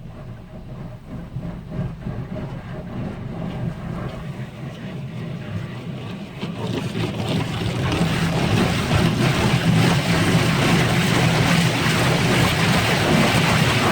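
Automatic car wash machine running, heard from inside the car: a low steady machine hum, then about halfway through water spray hitting the car starts and grows loud, a dense even rushing.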